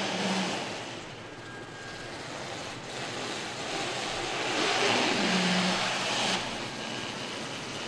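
A Rolls-Royce car driving slowly past: a steady rushing noise with a brief low hum, swelling to its loudest about five seconds in, then cutting off suddenly a little after six seconds.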